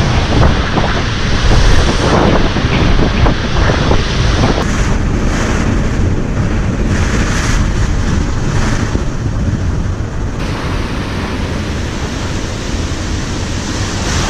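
Category 4 tropical cyclone winds gusting against a house: a loud, continuous rush of wind, with knocks and rattles in the first few seconds.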